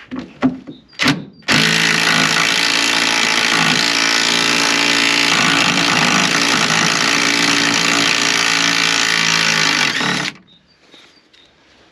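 A few metal knocks, then an impact wrench runs steadily for about nine seconds and stops suddenly, working on the seized, twenty-year-old bolts of a van's towing eye.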